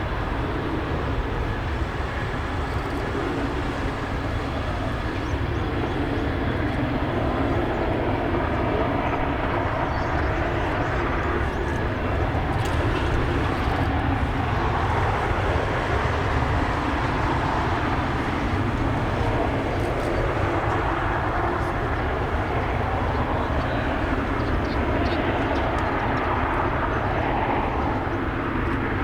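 Jet aircraft engine running steadily: a continuous rush of noise with a faint whine, swelling a little partway through.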